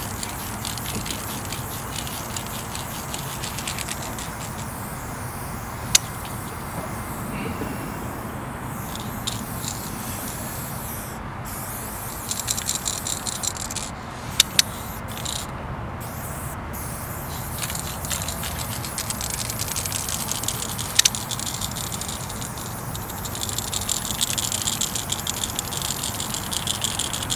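Light orange Molotow spray paint can hissing in long sprays, with short breaks about a third of the way in and again around the middle. A few sharp clicks stand out on top of the hiss.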